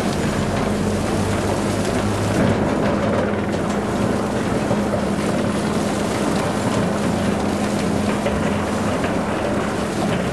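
Heavy demolition machinery running: a steady, loud engine drone with a constant low hum.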